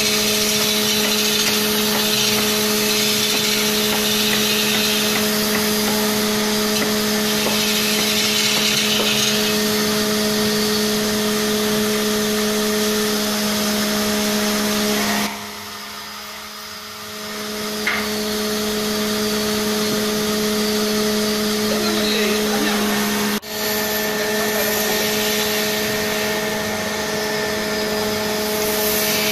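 Electric wood lathe spinning a large wooden log while a turning chisel cuts into it: a steady motor hum under the hiss and scrape of the cut. Around halfway the sound drops for about two seconds, then picks up again.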